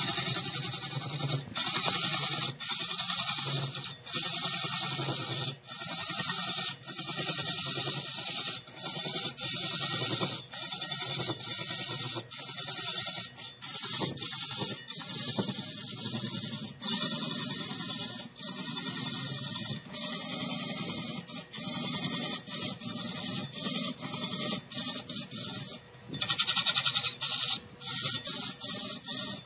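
Turning tool cutting into wood spinning on a large wood lathe: a harsh, hissing scrape over a faint machine hum, cutting off and resuming in brief gaps every second or two.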